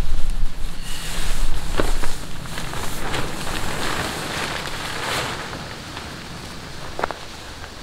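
Tarp fabric rustling and crinkling as it is handled and pulled down from its ridgeline, with a few sharp clicks and snaps. A low rumble runs under the first two seconds.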